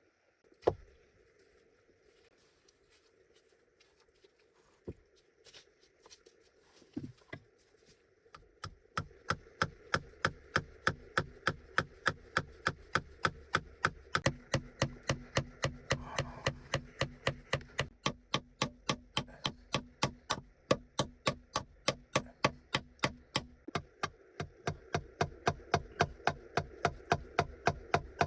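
A few separate knocks, then about eight seconds in a steady run of chopping strikes on wood begins, about two and a half a second.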